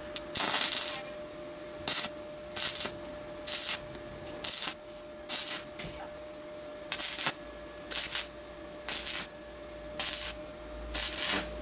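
Stick welding arc on thin exhaust-pipe steel, crackling and hissing in about a dozen short bursts roughly a second apart as the electrode is struck and lifted again and again. A faint steady tone runs underneath.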